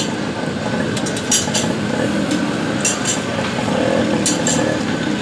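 Metal spatula clinking against a flat iron griddle in short, sharp, irregular strikes, over steady street-stall background noise.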